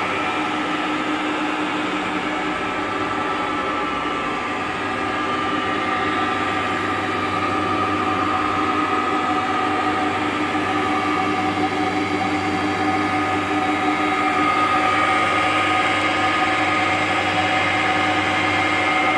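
SAJO milling machine running: a steady mechanical hum from its motor and gear drive, with a whine in several tones that grows slightly louder in the second half.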